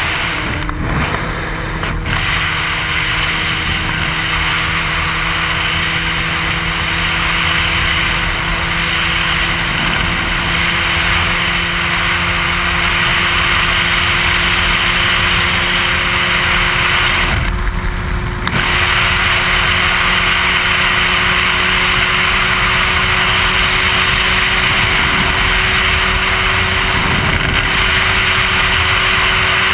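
Sport motorcycle engine running at a steady highway cruise, heard under loud wind noise rushing over the helmet-mounted microphone. The wind noise drops briefly about a second in and again about eighteen seconds in.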